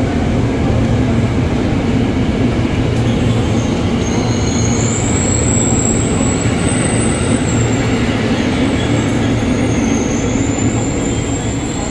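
KRL Commuter Line electric train pulling out of the platform, its cars rolling past with a steady loud rumble and hum. A thin high squeal rises about four seconds in, holds for a few seconds, and comes back near the end.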